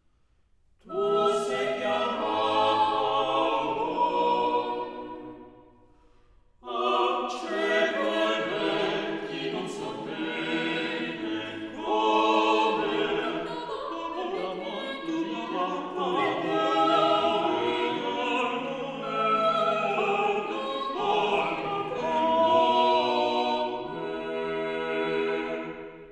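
Background music of operatic choral singing with orchestra, fading out briefly after about five seconds and then coming back in.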